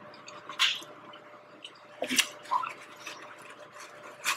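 Close-up wet mouth sounds of eating king crab meat: a few short smacks and squelches, with a paper napkin rustling near the end.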